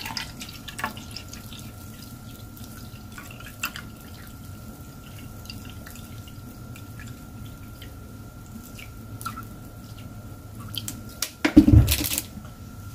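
Bottled water trickling in a thin stream from a plastic bottle into a measuring jug, with faint dripping. Near the end, a few louder knocks as the bottle is set down.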